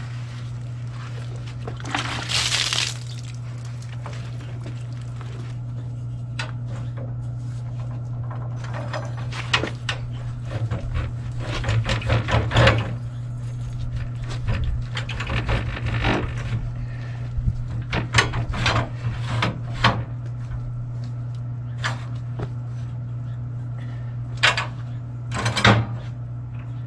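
Intermittent metallic clanks, knocks and scrapes from handling a metal hitch-mounted generator carrier rack, over a steady low hum.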